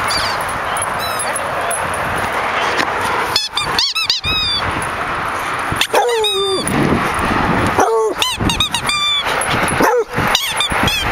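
Dog giving a series of high, wavering whines and yips, some single and some in quick runs, eager for a rubber ring toy held out of reach.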